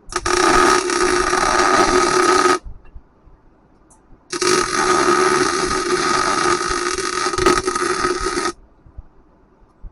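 Welding arc filling an old bolt hole in a steel forklift rim, with two steady runs of welding about 2.5 and 4 seconds long and a short pause between them.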